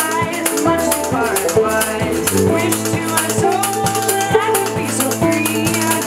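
Acoustic string band playing: acoustic guitar and banjo, a tuba holding low bass notes, and a washboard and snare drum keeping an even beat of about two strikes a second.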